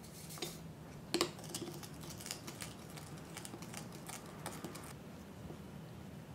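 A foil packet rustling as powder is shaken out into a glass bowl, then a small plastic spoon stirring it into liquid, with quick light clicks and scrapes against the glass that die away about five seconds in.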